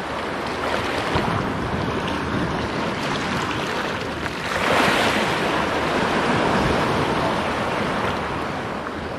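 Sea water washing and wind buffeting the microphone, a steady rushing that swells briefly about five seconds in.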